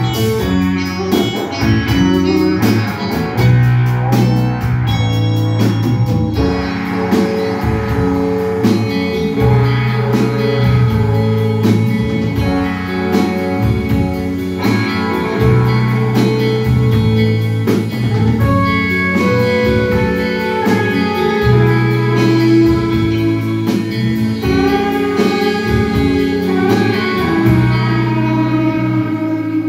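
Live rock band playing: two electric guitars over bass guitar and drum kit, with a steady drum beat and long held bass notes.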